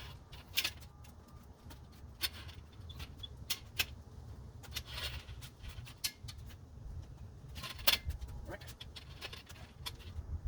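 Scattered clicks and light metallic rattles from the steel frame of an EZ-Up instant canopy being handled, over a steady low rumble.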